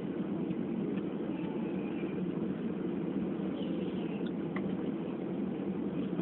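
Steady low cabin noise inside a Ryanair Boeing 737 on the ground before takeoff: the even hum of the jet engines and air system, with a few faint clicks.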